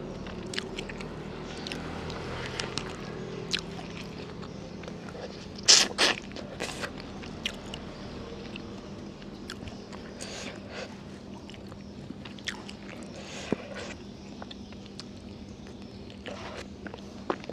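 Close-miked eating of fried noodles with chicken: chewing and biting with small wet crackles, and two louder crunches about six seconds in.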